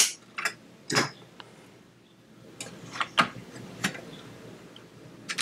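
SO-DIMM RAM modules being pressed into the memory slots of a Shuttle DS81 mini PC's motherboard: a string of about eight sharp plastic clicks and snaps at irregular spacing as the sticks are seated and their retaining clips latch.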